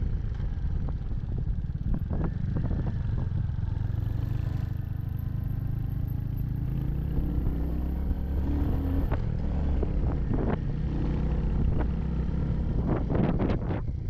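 Royal Enfield Hunter 350's single-cylinder engine running steadily as the motorcycle rides along, with scattered knocks and rattles from the bike jolting over a rough road, several close together near the end.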